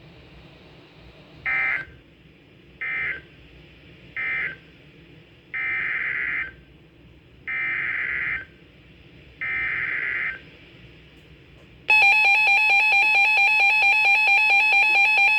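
NOAA Weather Radio SAME data bursts: three short end-of-message bursts, then three longer header bursts of raspy digital squawking that signal a new warning. About twelve seconds in, a loud, continuous warbling electronic alert tone starts.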